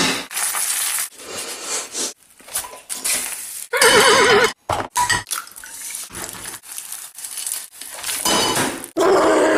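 Frying pan knocking and clattering on a gas hob's metal pan supports as it is batted about, with a run of sharp knocks and clinks. A short wavering vocal cry comes about four seconds in, and a long held vocal sound starts near the end.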